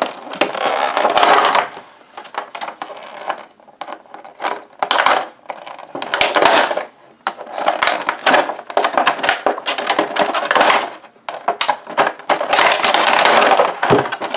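Plastic packaging crinkling and crackling in repeated bursts of a second or two as an action figure and its small accessories are pulled free of it.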